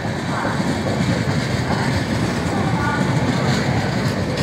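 Passenger coaches of an express train rolling past at a platform as the train arrives: a steady, loud rumble and clatter of wheels on the rails.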